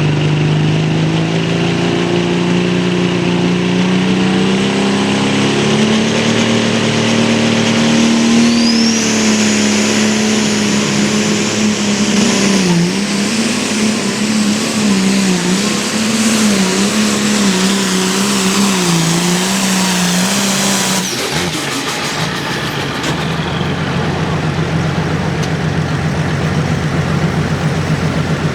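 Hot Farm class pulling tractor's turbocharged diesel engine running flat out under load, its pitch climbing over the first several seconds and then wavering as the tractor bounces down the track. A high turbocharger whine rises about nine seconds in and holds. About 21 seconds in, the engine is abruptly throttled back at the end of the pull, and a steadier, lower engine sound carries on.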